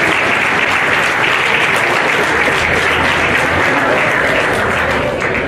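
Crowd applauding steadily, easing off near the end.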